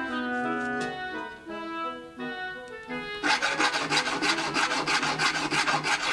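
Background music for about the first three seconds, then a hand file rasping back and forth against the inner edge of a silver ring in quick, even strokes over the music.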